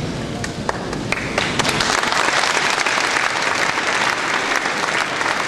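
Audience applauding, the clapping growing fuller about two seconds in.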